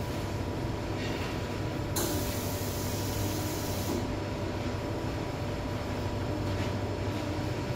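Steady machine hum with hiss and a faint steady whine; a brighter hiss joins for about two seconds, a couple of seconds in.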